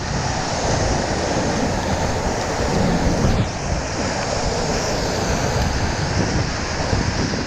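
Big whitewater rapids rushing and churning around a kayak, with water splashing over the boat: a loud, steady rush of water.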